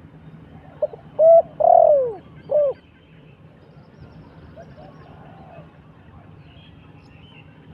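Decoy dove cooing: one loud three-note coo with the middle note the longest, about a second in. Fainter answering coos follow around five seconds in and again near the end.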